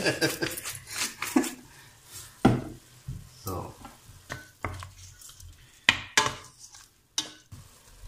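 Shrimp and calamari frying faintly in oil in a stainless steel pot, with a few sharp knocks and clinks against the pot.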